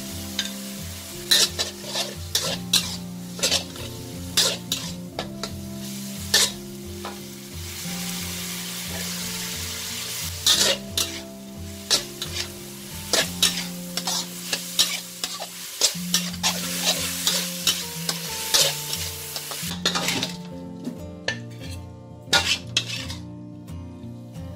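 Stir-fry of pork, chilli and sator beans sizzling in an aluminium wok, with a spatula clanking and scraping against the pan, over background music. About 20 seconds in the sizzle dies away, leaving only spatula scrapes as the food is scooped onto a plate.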